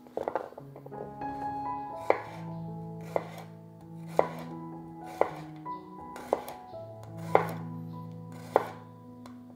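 Chef's knife slicing peeled garlic cloves on a bamboo cutting board: seven sharp chops, about one a second, after a few small clicks as the cloves are set down at the start. Soft background music with held notes plays underneath.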